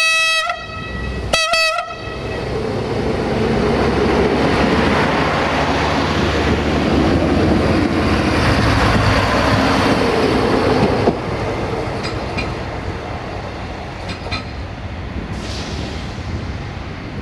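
Siemens Desiro diesel multiple unit giving two short horn toots in the first two seconds. Then its engine and wheels rumble louder as it passes close by, drop off sharply about eleven seconds in and fade as it pulls away, with a few wheel clicks over rail joints.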